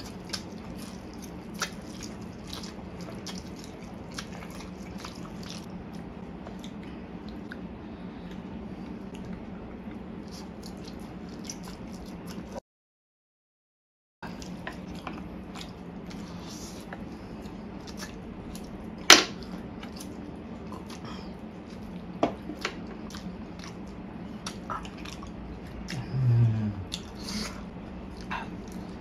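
Close-up eating sounds: instant fire noodles slurped and chewed, with scattered sharp clicks and taps, the loudest a single click about 19 seconds in, over a steady low hum. The sound cuts out completely for a second or two around the middle.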